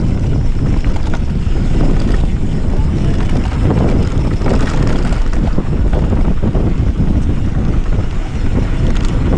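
Wind buffeting the microphone over the rumble of a mountain bike's tyres on a loose gravel trail, with frequent small rattles and knocks from the bike on a fast descent.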